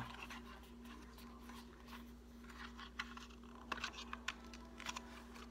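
Faint, scattered small clicks and taps of a plastic phone case and its packaging being handled, over a steady low hum.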